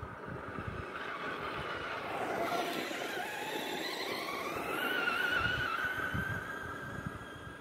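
Traxxas Slash RC truck's electric motor whining as it drives, its pitch climbing and falling as the truck speeds up and slows, over a rough rushing noise; loudest about five seconds in.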